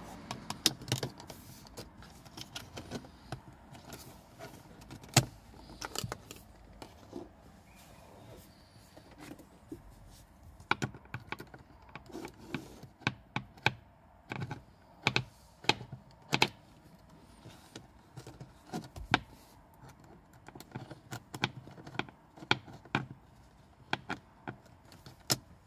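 Irregular plastic clicks, taps and scrapes from a plastic trim pry tool and a small screwdriver working at a Mercedes W124 dashboard speaker grille to pry it loose.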